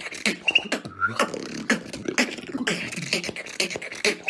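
Beatboxing in a house-beat freestyle: a fast, steady rhythm of mouth-made kick, snare and hi-hat sounds with low bass thumps. Short whistled notes are woven into the beat about half a second and a second in.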